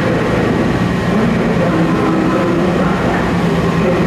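WMATA 6000-series subway car standing at the platform with its doors open, its onboard equipment running with a steady hum and rumble.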